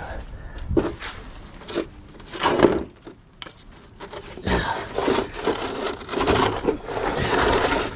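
Irregular knocks and clatter, then longer scraping and rubbing from about four and a half seconds in: car cooling-system parts being handled and worked loose by hand.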